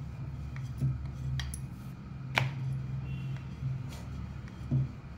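Wooden rolling pin rolling dough on a marble board: a steady low rumble with a few sharp clicks and knocks. The loudest click comes about two and a half seconds in.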